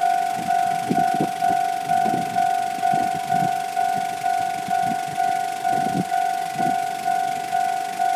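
Japanese railway level-crossing warning bell ringing, a steady electronic clang struck again and again just under twice a second. Under it, low uneven knocks from a passing train's wheels clattering over the rail joints.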